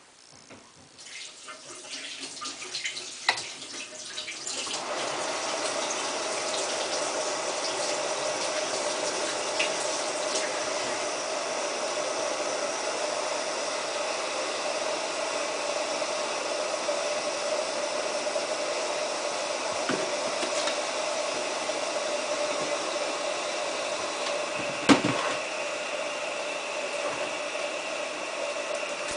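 Samsung WF8804RPA front-loading washing machine filling with water at the start of its prewash: a few light clicks, then a steady rush of incoming water from about five seconds in. A single sharp knock near the end.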